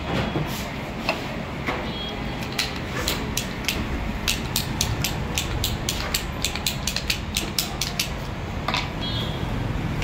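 Quick run of sharp metallic clicks, about three to four a second, from a freshly oiled Hero motorcycle lock being worked over and over to free it up. The clicks stop about eight seconds in.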